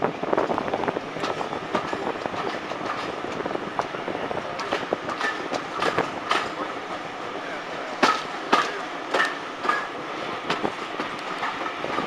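Heritage railway carriage running slowly, heard from an open carriage window: a steady rolling rumble with its wheels clacking over rail joints. About two-thirds of the way through comes a run of louder clacks roughly half a second apart, with brief squeals from the wheels.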